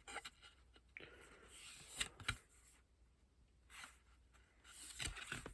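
Faint rustling of paper as the pages of a small picture book are handled and turned, with a few light clicks.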